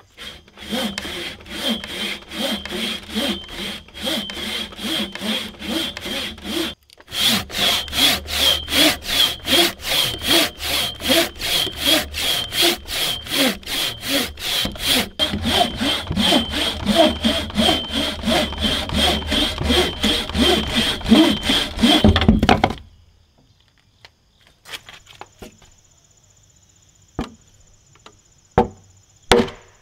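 Wooden frame saw cutting a tenon in a timber beam, rasping back and forth at about two strokes a second. The sawing stops about 23 seconds in, and a few sharp taps follow near the end.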